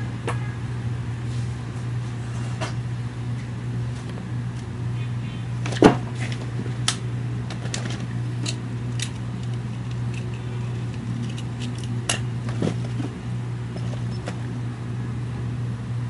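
A steady low hum with scattered light clicks and knocks from objects being handled on a workbench; the loudest knock comes about six seconds in.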